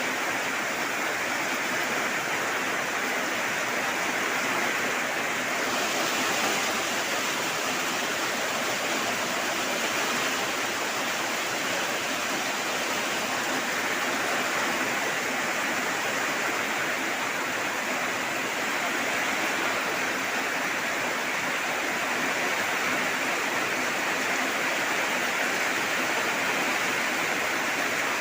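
Steady rainfall, an even hiss of falling rain with no gaps or changes in level.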